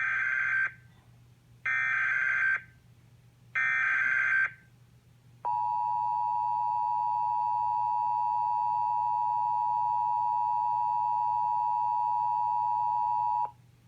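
NOAA Weather Radio alert signal: three short bursts of SAME digital header data, about two seconds apart, then the steady 1050 Hz warning alarm tone held for about eight seconds and cut off abruptly near the end. The signal opens a new flood warning broadcast.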